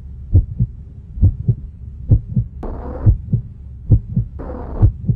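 Heartbeat sound effect: paired low thumps, one pair a little under every second, over a steady deep bass drone, with two brief swells of hiss, one in the middle and one near the end.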